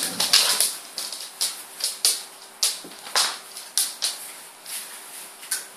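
Staffordshire bull terrier and Rottweiler play-fighting: a run of short, sharp scuffling clicks and snaps, irregular and about two a second.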